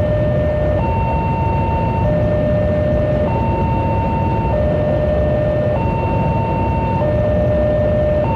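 A passing train, with a steady low rumble, under an electronic two-tone warning alarm that alternates between a high and a low tone about every 1.2 seconds.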